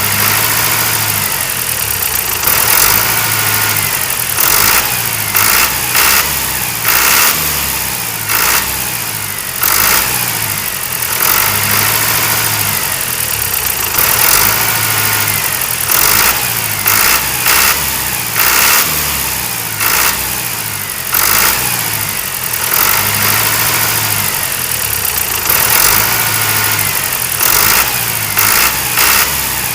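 An engine running steadily, in a repeating pattern of louder pulses.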